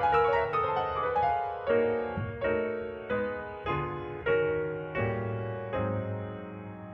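Piano playing: a quick run of notes, then a slowing series of struck chords about every two-thirds of a second, the last one held and ringing away.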